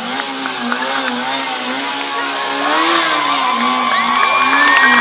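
Sport bike engine revving in short rises and falls as the rider holds the leaned-over bike in a tight low-speed circle. From about halfway in, shouts and cheers from onlookers build over the engine.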